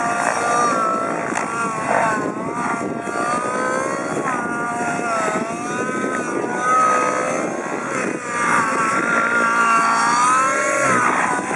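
Nitro-engined JR Vibe 90SG radio-controlled helicopter flying close by, its engine and rotor sound rising and falling in pitch as it manoeuvres.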